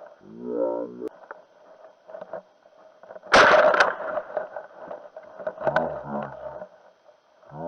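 A single shotgun shot about three seconds in, a sharp loud blast that dies away within about half a second.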